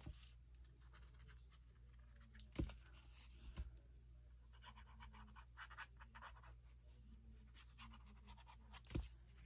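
Quiet paper handling: faint scratching and rustling as a fine-tip liquid glue bottle is drawn along the edge of a cardstock strip, with a few light taps.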